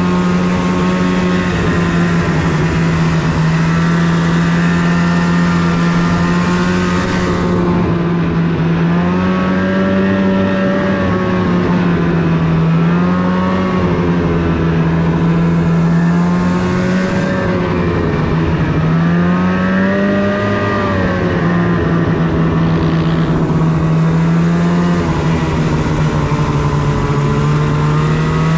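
Snowmobile engine running under way, a steady drone whose pitch rises and falls a few times as the throttle is worked.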